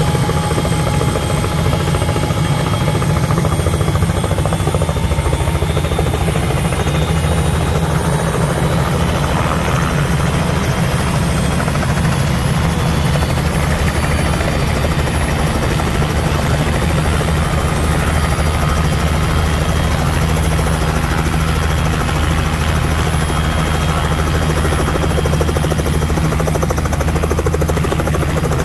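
Small helicopter running on the ground with its rotor turning, a loud, steady sound that does not change.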